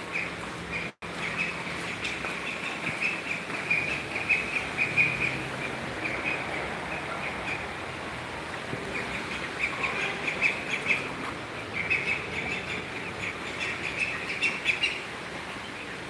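Young ducks peeping: repeated high chirps in runs, with the sound cutting out for an instant about a second in.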